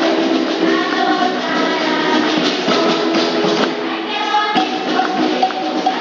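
Girls' choir singing a Venezuelan aguinaldo Christmas song, accompanied by hand percussion that shakes and taps in rhythm, with a dense rattle about four seconds in.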